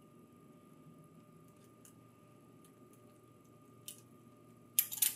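Faint ticks of a flathead screwdriver backing small screws out of a hard disk's metal mounting bracket. About four seconds in there is a small click, then near the end a quick cluster of louder, sharp metal clicks.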